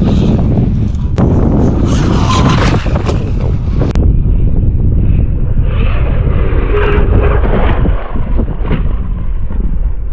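Traxxas Maxx V2 RC monster truck being driven, its electric drivetrain running under heavy wind buffeting on the microphone, with a few sharp clicks or knocks.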